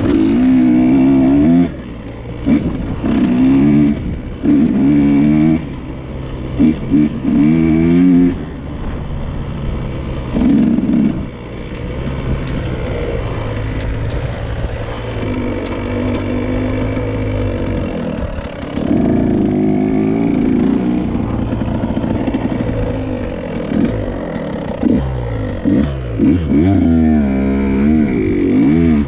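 KTM dirt bike engine revving in repeated bursts as the throttle opens and closes, its pitch rising and falling, with quieter, steadier running in between.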